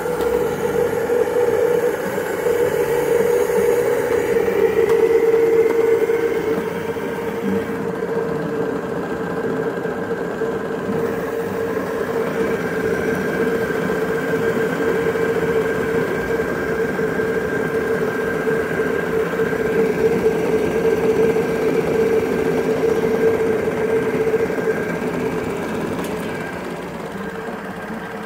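A model steam launch's small engine running steadily, a constant high hum over a rattly whir, easing off a little near the end.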